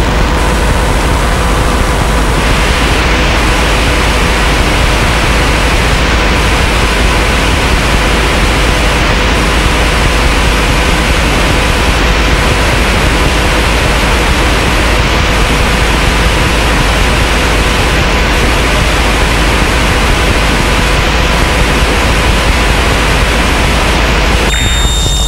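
Experimental noise music: a loud, unbroken wall of hiss with faint steady hum tones underneath. The hiss brightens about two seconds in, and near the end it thins out and gives way to high steady tones.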